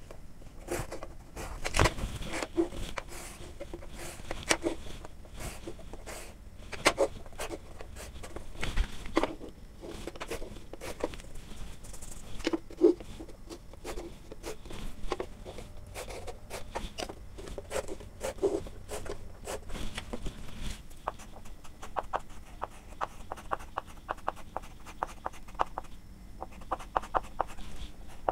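Chalk and a long ruler on a chalkboard: scattered knocks and taps as the ruler is set against the board and chalk lines are ruled along it. About two-thirds of the way through this gives way to quick, closely spaced chalk strokes as a heading is lettered.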